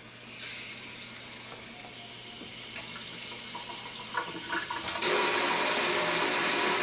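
Water running from an Anzzi single-handle pull-down kitchen faucet into a stainless steel sink. The flow gets much louder about five seconds in.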